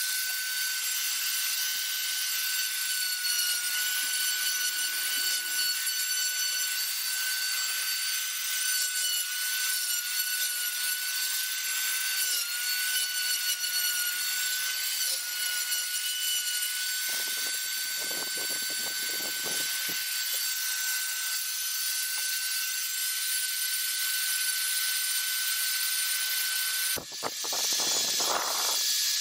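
Small electric rotary carving tool running at a steady high whine while its burr grinds into wood. About two seconds before the end the sound changes abruptly to a brighter, hissier whine of a rotary tool working fine detail.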